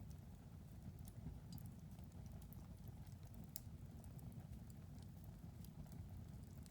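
Wood fire in a fireplace crackling faintly: small, irregular pops and snaps over a low, steady rumble of the burning.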